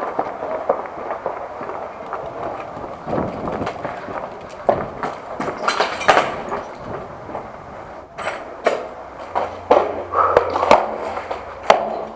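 Movement noise from a player on foot: footsteps and rattling gear, with scattered sharp clicks and snaps, several of them in the last few seconds.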